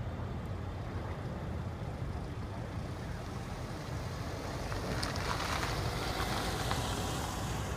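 Steady low rumble of street traffic, with a car driving close past about five seconds in, its tyre and engine noise swelling as it passes.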